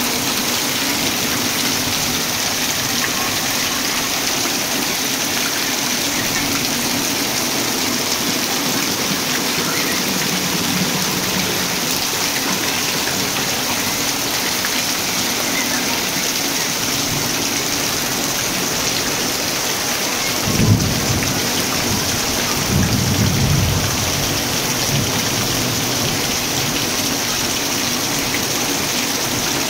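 Heavy rain pouring steadily onto wet concrete and corrugated metal sheeting. About two-thirds of the way through there is a low thump followed by a short low rumble.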